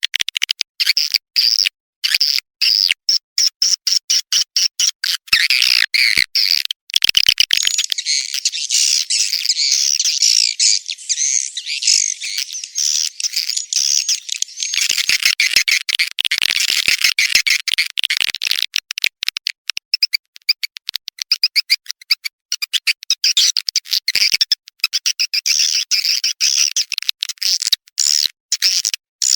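Swiftlet lure call: rapid, high-pitched twittering and chirping of swiftlets, chopped into quick bursts with short gaps and denser unbroken stretches, a mixed call recording played to draw edible-nest swiftlets into a nesting house.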